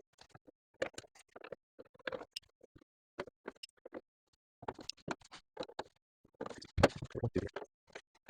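Irregular clicks, taps and scrapes of a screwdriver, screws and the receiver's sheet-metal cover being handled, with short silent gaps between. A denser, louder clatter with a few low thuds comes about two-thirds of the way in.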